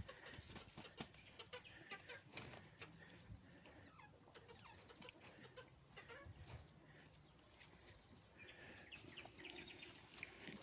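Faint clucking with scattered soft clicks and rustles.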